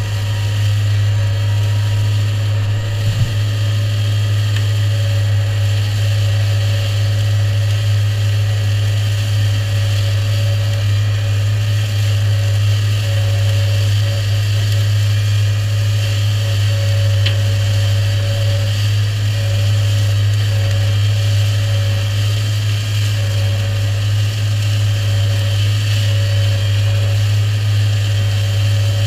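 New Holland tractor's engine and Shelbourne reach-arm flail mower running steadily while the flail head cuts grass on a ditch bank: a steady low drone with a higher whine over it. A brief thump comes about three seconds in.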